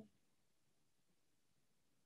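Near silence: a pause in a video call.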